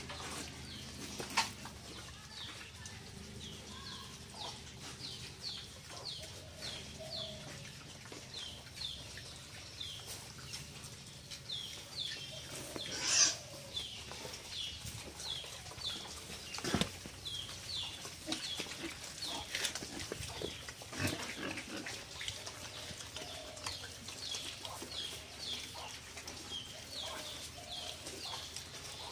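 Domestic pigs grunting and moving about in bamboo pens, with a few knocks and one brief, louder shrill cry about 13 seconds in. A high, short chirp repeats about twice a second throughout.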